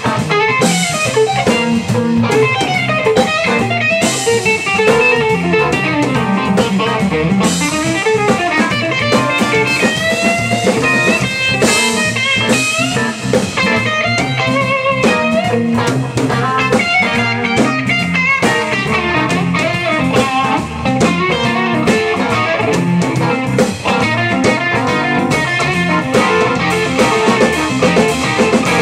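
Live blues band: a Telecaster-style electric guitar playing a lead with bent notes over a drum kit.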